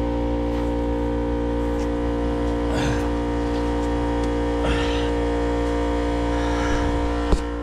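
Background music: a steady sustained chord over a low drone, with a single click near the end.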